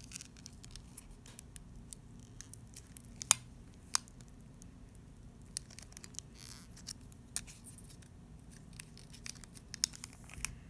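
A prying tool working at the inside of a Samsung Galaxy S10 smartphone, making irregular sharp clicks and snaps. The loudest two come about three and four seconds in, and a small cluster comes near the end.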